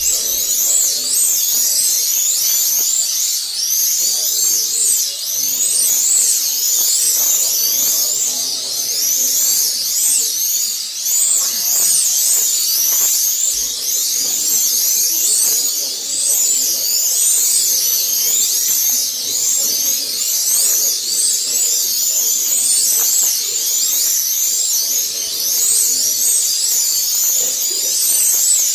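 Several 1/32-scale slot cars' small electric motors whining at high pitch, many at once and overlapping. The pitch of each keeps rising and falling as the cars speed up and brake around the track.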